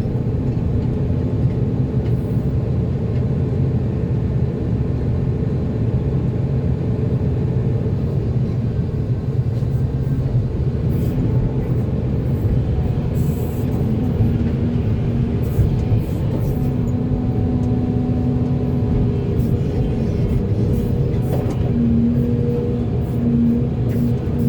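Volvo EC480D excavator's diesel engine running steadily under load, a low rumble with a higher tone that comes and goes several times.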